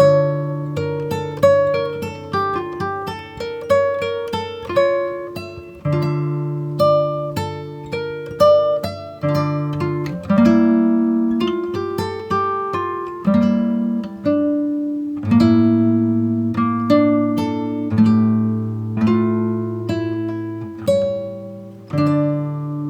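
Background music: an acoustic guitar picking notes over a shifting bass line.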